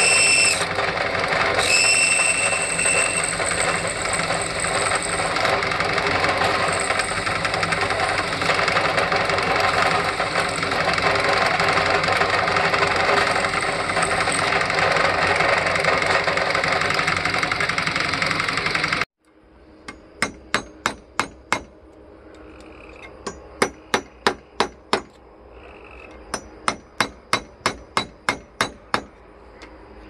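A drill press runs steadily as its bit drills holes through the back of an antique Westinghouse fan's metal motor housing. About two-thirds of the way in this gives way to three runs of quick, sharp hammer blows on a metal punch, driving the stuck stator out of the housing.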